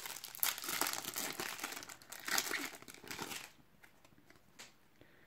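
Foil trading-card packet (Panini Adrenalyn XL) being torn open and crinkled in the hands, the wrapper crackling irregularly. After about three and a half seconds the crackling stops, leaving near quiet with a faint tap.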